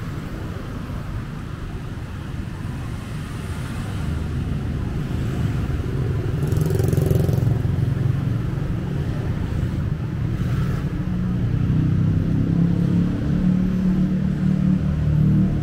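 City street traffic: a steady low rumble of cars and motorbikes that grows louder through the second half, with a brief hiss about seven seconds in.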